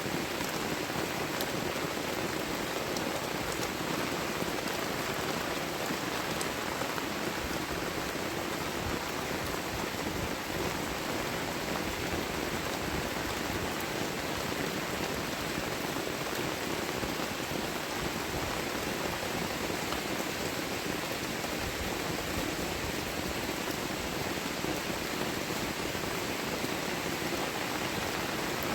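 Heavy tropical rain falling steadily: a dense, even hiss of rain with scattered sharper drop ticks.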